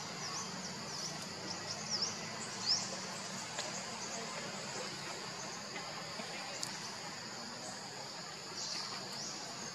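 Steady high-pitched drone of an insect chorus, with a few short high chirps in the first three seconds.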